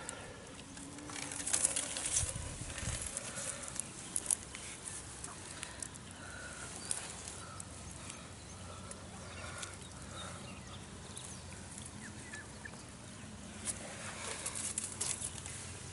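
Rustling, knocks and scrapes of a freshly caught carp being handled out of a landing net among dry reeds, loudest about two seconds in.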